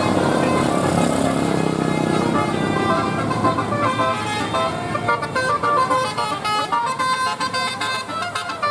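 Bus 'telolet' multi-tone air horn playing a quick melody of short stepped notes over vehicle noise; the tune comes in about halfway through.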